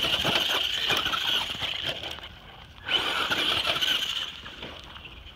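Traxxas Rustler RC truck's motor and drivetrain whining high under throttle, in two goes: the first fades about two seconds in, the second starts sharply about three seconds in and fades a little after four. Tyres crackle over loose dirt and stones under the first whine.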